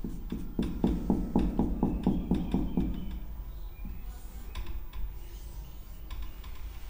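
Quick, evenly spaced scratching strokes, about five a second, like a pen or marker drawing on a board, followed by a few fainter taps and scrapes.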